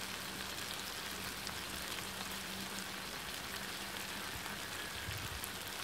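Onion-tomato masala sizzling steadily in sesame oil in a black iron kadai, with scattered fine crackles.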